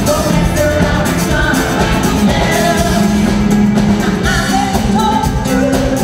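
Live band playing an upbeat pop-rock song, with several women singing together into microphones over a full band with drums.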